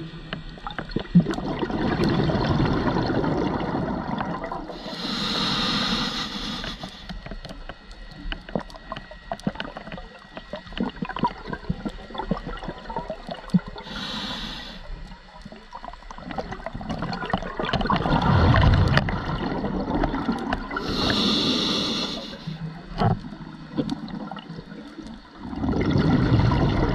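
Scuba diver breathing through a regulator underwater. A short hiss of inhalation is followed by a long bubbling gurgle of exhaled air, and the cycle repeats about every seven or eight seconds. Scattered small clicks and crackles fill the gaps between breaths.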